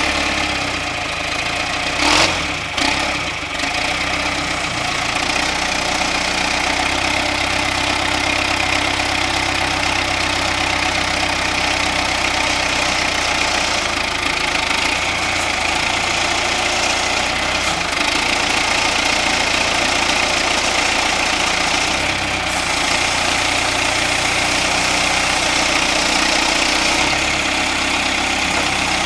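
John Deere 510C loader backhoe's turbo diesel engine running steadily, with a couple of sharp knocks about two to three seconds in.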